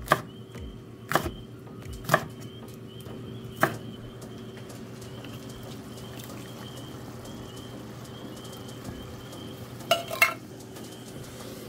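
Chef's knife chopping bell pepper on a wooden cutting board: four sharp knocks spread over the first four seconds, over a steady low hum. About ten seconds in, a short clatter as diced tomatoes are tipped from a can into a stainless steel frying pan.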